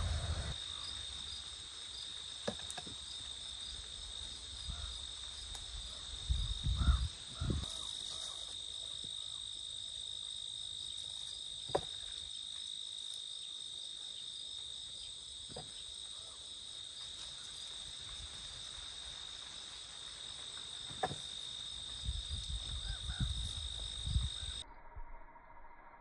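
A steady high-pitched trill of insects, which stops abruptly near the end. A few soft low thumps and rustles come about seven seconds in and again near the end.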